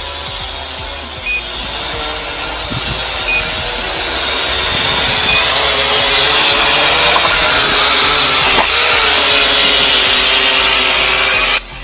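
Holy Stone HS100 quadcopter's propellers buzzing as it comes down toward the ground, growing louder over the first half and cutting off abruptly near the end. Short single beeps come about every two seconds, matching the remote control's low-voltage warning.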